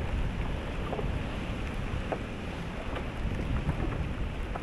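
Wind buffeting the microphone over open, choppy sea: a steady low rumble, with a few faint ticks of light rain.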